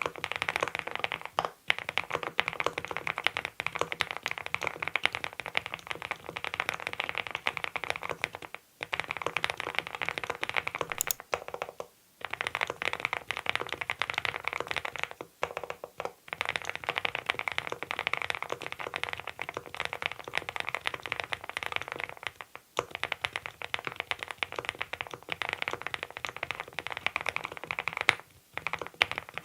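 Continuous fast typing on a Monstargear Ninja87 Pro ALU aluminium-case mechanical keyboard fitted with Adelie switches. It is a dense run of keystroke clacks, broken by several brief pauses.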